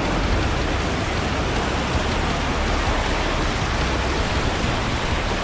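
Steady rushing of water from an off-road vehicle fording a river, with a low rumble beneath.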